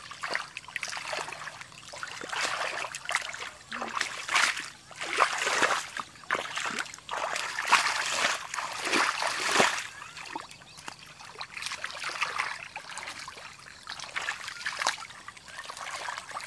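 Shallow muddy water splashing and sloshing as a barefoot person wades through it and gropes along the bottom by hand for fish. It comes in irregular bursts, busiest in the middle.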